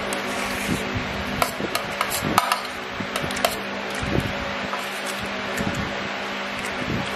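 Metal spoon scraping and clinking against a stainless steel thali while scooping biryani, with a cluster of sharp, briefly ringing clinks in the first half. A steady fan hum runs underneath.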